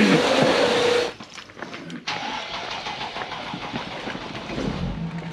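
A small motor whines steadily and cuts off about a second in. Near the end, a vehicle engine starts with a low rumble and settles into a steady idle.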